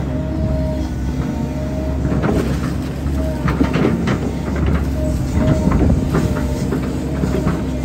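Volvo hydraulic excavator running under load, its diesel engine droning steadily, with a high whine that comes and goes as the hydraulics work the boom. Repeated knocks and clanks sound as the bucket is worked over the earth embankment.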